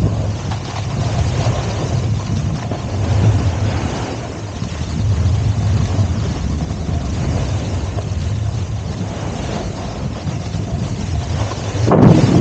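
Wind rushing over the microphone while sliding fast down a ski run, with the hiss and scrape of sliding through wet, slushy spring snow. The noise swells into a louder burst near the end.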